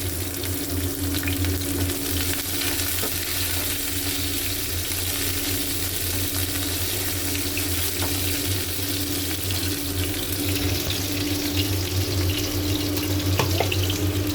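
Onions frying in hot oil in a pan: a steady sizzle with small crackles, over a steady low hum.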